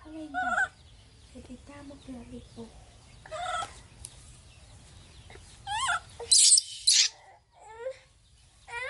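Baby monkey crying while being rubbed dry in a towel: a few short high squeals, some with a wavering pitch, and a loud, harsh screech about six and a half seconds in.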